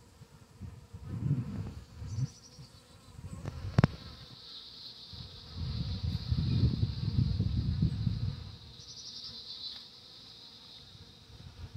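Bees buzzing in flight close to the microphone, the buzz swelling and fading as they come and go around the water bowl. A steady high-pitched shrill runs in the background, and there is one sharp click a little before four seconds in.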